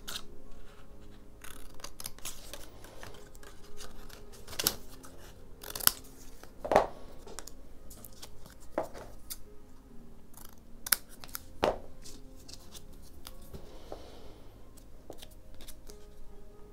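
Scissors snipping painted watercolour paper in short, irregular cuts, with the paper pieces being handled and pressed down between them.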